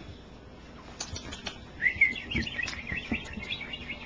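Cockapoo puppy squeaking and whimpering: a quick run of short, high-pitched squeaks starting about two seconds in, after a few faint clicks.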